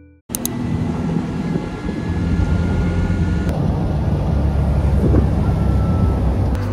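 Steady engine and road noise heard from inside a moving open-sided auto-rickshaw, with a low engine hum under the rush of traffic and wind. It starts abruptly just after the beginning.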